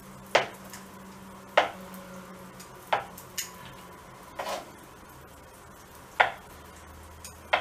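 Kitchen knife slicing peeled hard-boiled eggs on a wooden cutting board, the blade knocking sharply on the board at each cut: about six knocks, a second or so apart.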